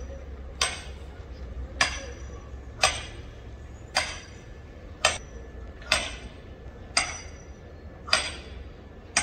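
Sledgehammer driving a metal tent stake into the ground, with about nine ringing metallic strikes at a steady pace of roughly one a second.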